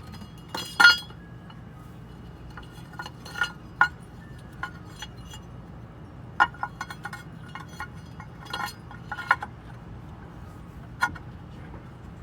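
Metal tools and parts clinking against each other while an engine is being worked on: a dozen or so sharp, ringing clinks at uneven intervals, the loudest about a second in, over a low steady hum.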